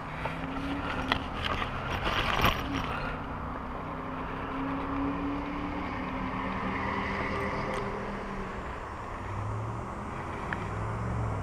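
A motor engine humming steadily, its pitch drifting slowly, with a few light clicks and rustles during the first few seconds.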